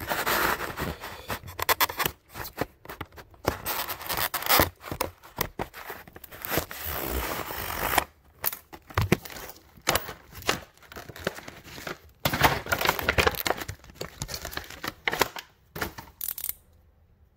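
Stiff plastic blister packaging of a ratchet and socket set being cut and torn open: irregular bursts of tearing and scraping with sharp clicks, stopping about a second before the end.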